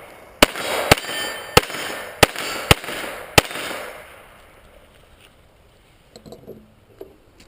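Six pistol shots, about half a second to two-thirds of a second apart, fired in under three seconds, with faint ringing of hit steel plates after some of them.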